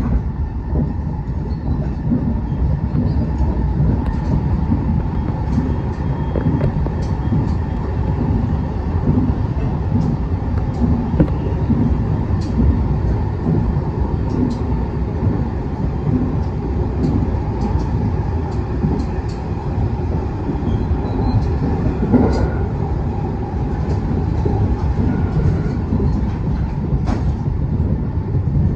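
Rapid Marine Liner electric train running at speed, heard from inside the carriage: a steady low rumble with scattered light clicks.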